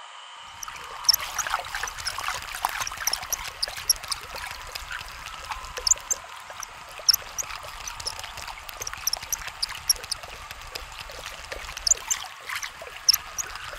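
Food sizzling and spitting in a frying pan over a braai fire: a steady hiss broken by frequent sharp, irregular pops and crackles.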